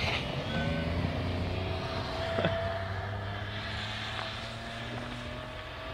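Chevrolet Captiva's 3.0-litre V6 engine running steadily under load as the SUV drives off through deep snow, growing a little fainter as it moves away.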